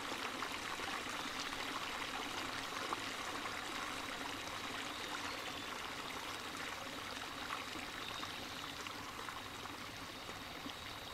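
Steady running water, a continuous splashing trickle, with a faint steady high tone above it. It eases a little in level near the end.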